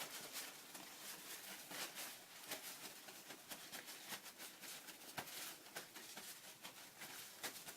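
Faint rustling and soft dabbing of a paper towel as wet hands are patted dry, in short irregular touches.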